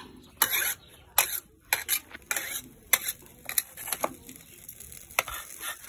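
A metal spatula scraping and clanking against a steel wok as salt is dry-roasted, in about eight irregular clinks and scrapes. Toward the end, metal tongs clink against a steel bowl.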